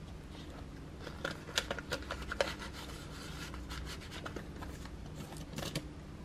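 Soft rustling and scattered light clicks of hands handling the paper pages and clear plastic envelope pages of a ring-binder budget planner.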